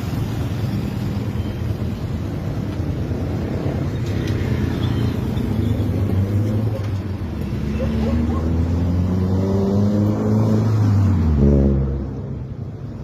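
A motor vehicle's engine speeding up over several seconds, its pitch climbing and its sound growing louder, then dropping away suddenly near the end.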